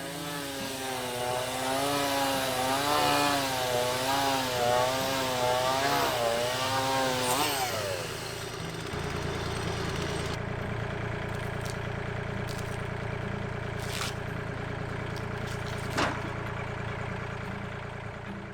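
Band sawmill's gas engine running as the blade cuts wood. Its pitch wavers up and down, then falls away about seven and a half seconds in, leaving a steadier, lower running noise.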